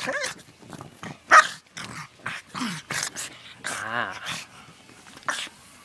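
A pug making excited play noises while it mouths a gloved hand: a string of short sudden sounds and brief calls, with a longer wavering call about four seconds in, mixed with blanket rustling.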